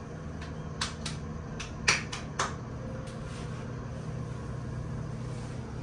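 A steady low mechanical hum, like a fan or air-conditioning unit, with four sharp clicks in the first two and a half seconds, the loudest a little under two seconds in.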